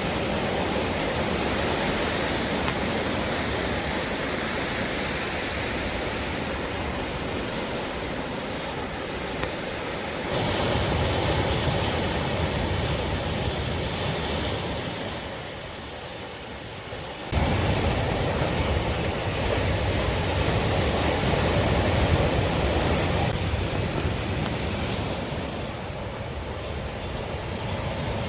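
Sea surf washing against the shore, a steady rushing wash of water. The sound gets fuller and deeper all at once about ten seconds in, thins out briefly, then jumps back up about seventeen seconds in.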